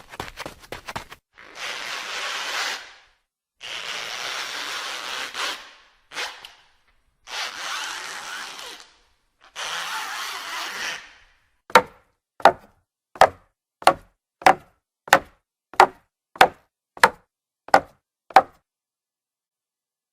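Foley effects in sequence: five long scraping strokes, then about eleven hard knocks evenly spaced, roughly one and a half a second.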